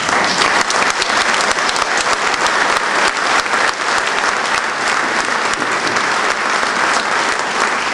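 Audience applauding loudly.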